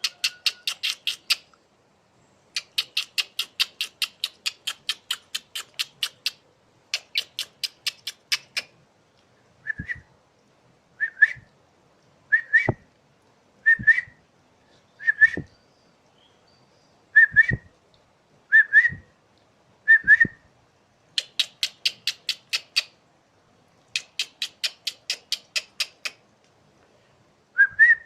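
Asian pied starling (jalak suren) calling: bouts of fast, harsh chattering notes that sound like a person laughing. In the middle stretch these give way to single short rising whistles about every second and a half.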